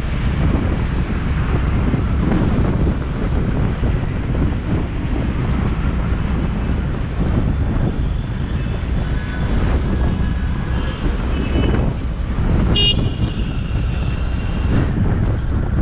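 City road traffic heard from a moving car: a steady low rumble of engine, tyre and wind noise, with several short car-horn toots in the second half, the clearest about three-quarters of the way through.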